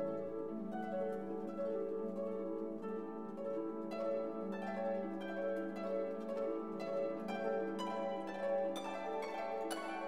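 Background instrumental music: held chords with a line of short notes that come thicker near the end.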